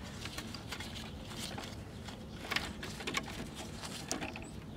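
Faint rustling and small clicks of wires and a white plastic plug connector being handled by a gloved hand inside an open TV cabinet, with a few sharper ticks after about two and a half seconds.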